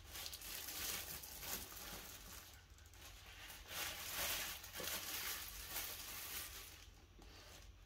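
Clear plastic bag crinkling and rustling as it is handled around a cardboard box, in irregular bursts that are loudest about four seconds in.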